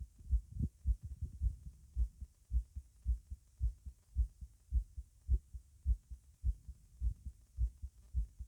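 Human heart sounds heard over the tricuspid area with the person standing: a fast, strong heartbeat of low thumps in a steady rhythm, a little under two a second.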